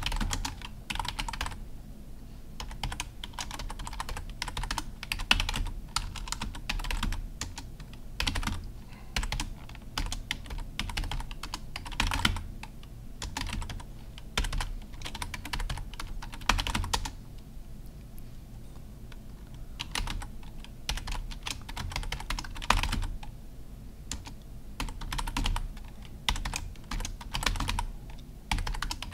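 Typing on a computer keyboard: irregular runs of keystrokes broken by short pauses.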